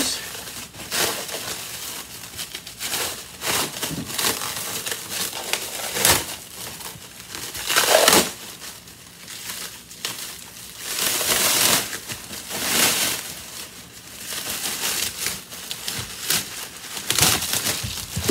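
Clear plastic bag crinkling and rustling in irregular bursts as a coiled vacuum hose is pulled and worked out of it.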